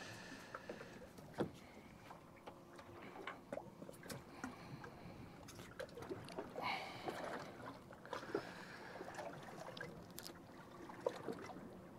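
Water lapping against a small boat's hull, with scattered light clicks and knocks of fishing tackle being handled and a sharper click about one and a half seconds in.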